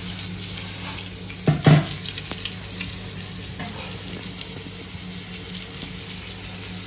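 Rava-coated pomfret shallow-frying in hot oil, a steady sizzle with fine crackling over a low hum. Two sharp knocks, like a utensil against the pan, come about one and a half seconds in.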